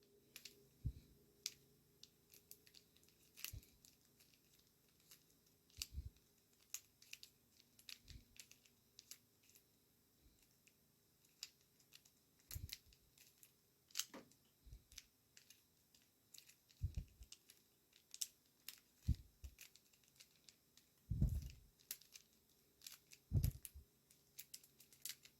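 Plastic clicks and clacks of a YJ floppy cube (3x3x1 puzzle) being turned by hand during a solve: scattered single clicks, with a few louder knocks near the end.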